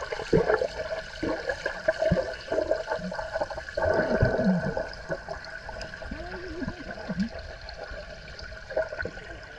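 Pool water churned by a man's arm to make a whirlpool, heard underwater: bubbling and gurgling as trapped air is swirled round, loudest about four seconds in, over a steady hum.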